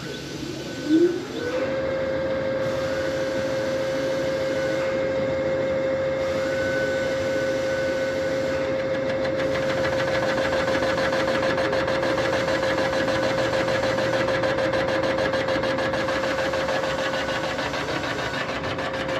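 CNC line-boring machine's spindle and boring bar spinning up with a brief loud rising sweep about a second in, then running at a steady whining pitch while line boring the main bearing bores of an engine block. The sound grows busier about halfway through.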